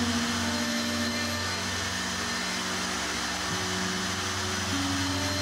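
Wood router with a dovetail bit running steadily while cutting dovetail slots in a board. Its motor pitch drops about one and a half seconds in and rises again near the end.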